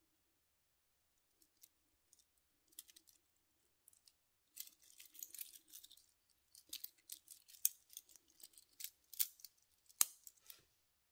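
Stainless-steel bracelet links and folding clasp of a Casio G-Shock GM-B2100 clicking and jingling as the bracelet is handled and put on the wrist. The clicking starts sparse and grows into a dense rattle, with one sharp click near the end as the clasp shuts.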